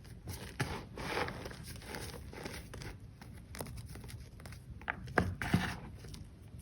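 Thin blocks of reformed gym chalk being crushed, crunching and crumbling in irregular strokes, with two sharper snaps about five seconds in.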